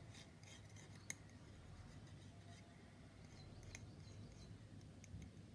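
Near silence: faint ticks and rubbing from a plastic model part and a needle-tipped cement bottle being handled, with one sharper click about a second in.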